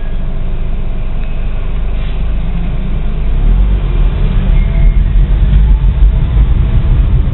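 Low, steady vehicle rumble of engine and road noise heard from inside a moving car's cabin. It grows louder and rougher about three and a half seconds in as the car picks up speed.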